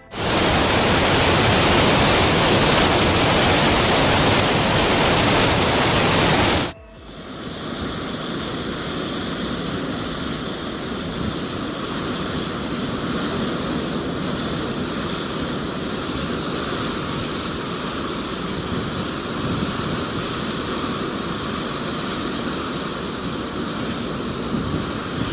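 The Dettifoss waterfall giving a loud, steady roar of falling water. About seven seconds in it cuts off suddenly, and a quieter steady rushing noise follows to the end.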